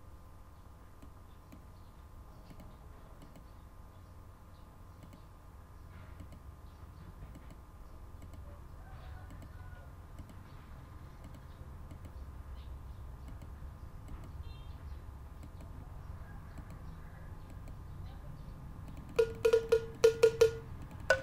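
Low background hum with faint mouse clicks, then, about two seconds before the end, a sampled cowbell from the Addictive Drums 2 drum plugin is auditioned in a quick run of about six sharp, ringing strikes.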